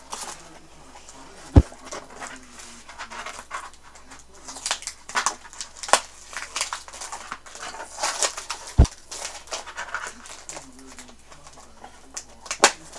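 Doll packaging being handled: plastic and cardboard rustling as twist ties are undone, with a few sharp clicks.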